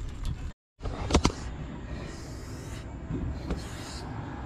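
A wrench working the bleeder screw on a rear brake caliper while bleeding the brakes: two sharp metal clicks a little over a second in, then soft rubbing and short hissing sounds.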